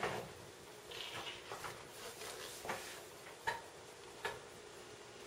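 A few faint, scattered clicks and light knocks, about one a second, from kitchenware being handled.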